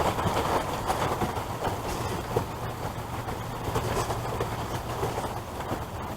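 Steady rain pattering with scattered small clicks, over a low steady hum.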